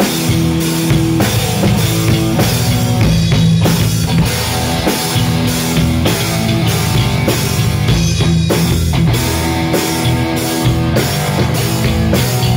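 A rock band playing live: a Tama drum kit keeping a steady beat under electric guitar chords.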